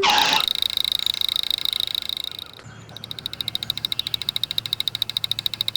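Electric car setting off with a high steady whine for about two and a half seconds, followed by a rapid, even buzzing pulse over a low hum.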